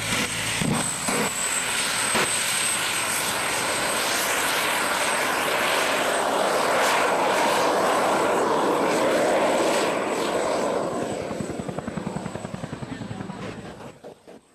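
Jet engine of a jet-powered portable toilet running with a loud, steady rushing roar. About ten seconds in it starts to fade, breaking into a rapid flutter as it dies away near the end.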